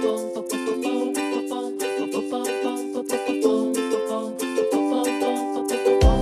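Background music only: a bright tune of quick plucked-string notes, ukulele-like, with a low bass coming in right at the end.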